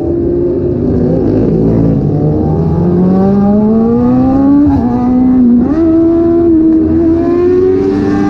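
Sport motorcycle engine heard from the bike itself, revving under acceleration. The pitch dips at a gear change a couple of seconds in, then climbs steadily, drops briefly at another shift about halfway, and jumps up and holds near the end.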